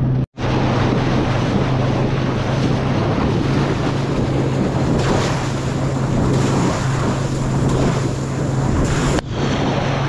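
A small fishing tender's outboard motor running at a steady pitch while under way, with water rushing past the hull and wind buffeting the microphone. The sound drops out for an instant just after the start.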